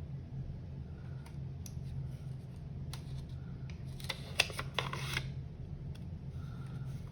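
Small clicks and scraping of plastic laptop parts being handled and pried during disassembly, with a quick burst of sharp clicks about four seconds in, over a steady low hum.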